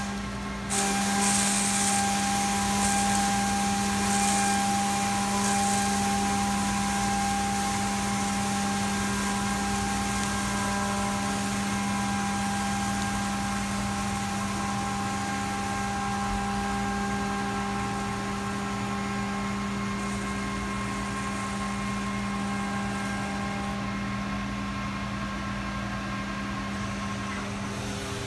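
Haas UMC-750SS five-axis mill face milling with a 3-inch Kennametal Stellram shell mill, its spindle at 12,000 RPM making a steady hum while the cutter sweeps a spiral over the turning table. The high cutting hiss thins out near the end as the cutter lifts off the part.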